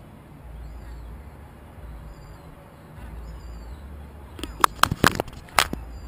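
Gull pecking at a GoPro camera's housing: a quick cluster of about five sharp taps a little over four seconds in, over a low steady rumble.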